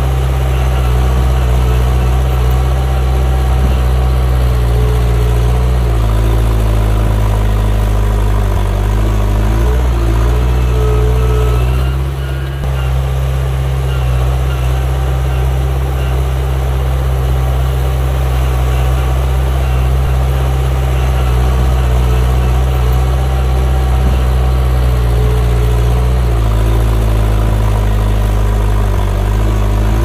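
Diesel engine of a heavy earthmoving machine running steadily, its note shifting in pitch a few times and dipping briefly about twelve seconds in.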